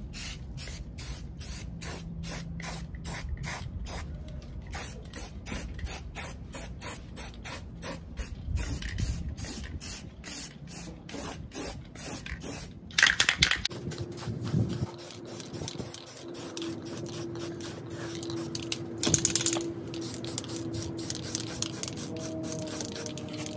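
Aerosol spray-paint can spraying black paint in quick short bursts, about three a second, with two longer, louder sprays about halfway through and near the end.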